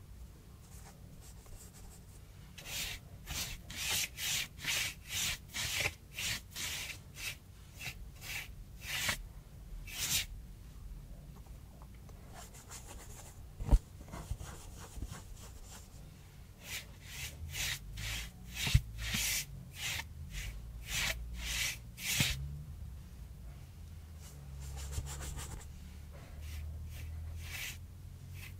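Paintbrush bristles scrubbing gouache across painting cardboard: quick scratchy back-and-forth strokes, about two a second, in two runs, with a single sharp tap between them.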